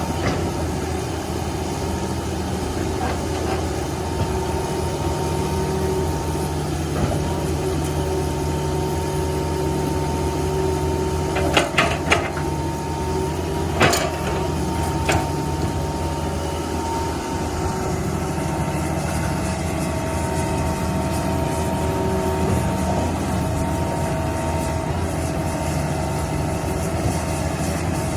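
Backhoe loader's diesel engine running steadily, with a steady whine above it and a few sharp knocks about halfway through.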